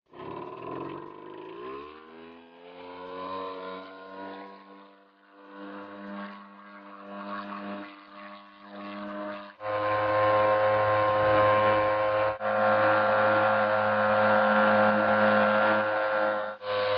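A small boat motor running. Its pitch rises as it speeds up over the first couple of seconds, then it holds a steady, even drone. It comes in much louder about ten seconds in, with two abrupt brief drops.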